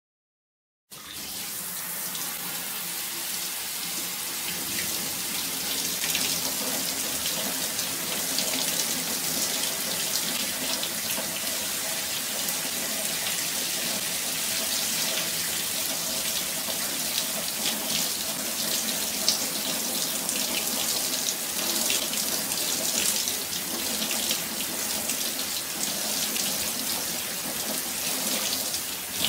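Water spraying steadily down onto plastic toy figures, washing the paint off them. It starts about a second in and keeps up as an even rush of water.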